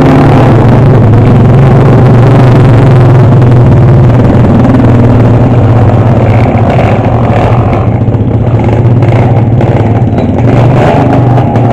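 Motor vehicle engines, motor scooters and a pickup truck, running close by as a loud, steady low drone.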